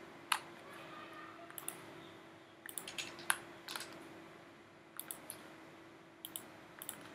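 About a dozen faint, irregular clicks from a computer mouse and keyboard, with a faint steady hum underneath.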